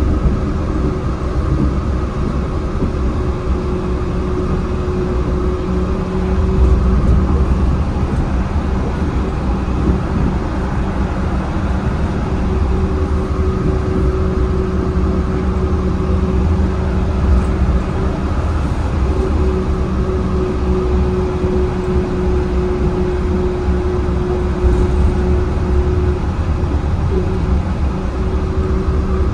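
Yurikamome rubber-tyred automated guideway train running at speed on its elevated track, heard from inside the front of the car: a steady low rumble of tyres on the guideway, with a steady hum that fades in and out several times.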